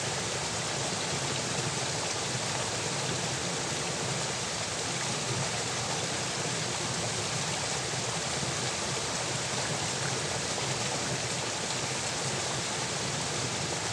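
Steady rush of water flowing along a small irrigation channel.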